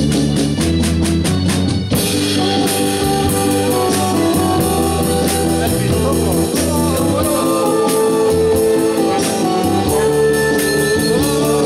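Live band playing a slow rock-and-roll number: drum kit keeping a steady beat under electric guitar, bass, saxophone and keyboard, with a male lead vocal. The music starts abruptly.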